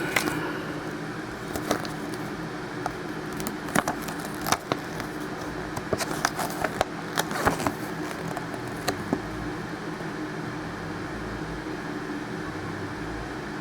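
Scattered light clicks and rustles of trading cards and a paper checklist being handled, over a steady low room hum; the clicks stop about two-thirds of the way through.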